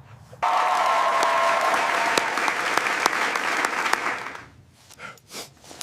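A crowd applauding, with a burst of clapping that starts suddenly about half a second in and fades away after about four seconds.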